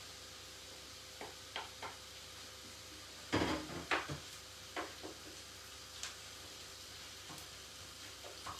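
Ground beef and sausage meat sizzling in a frying pan, with a spoon scraping and knocking against the pan. The loudest knocks come in a short cluster about three and a half seconds in.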